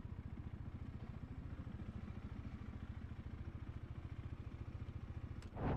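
Motorcycle engine running at a steady cruise, with an even low pulsing. Near the end a sudden loud rush of noise comes over it.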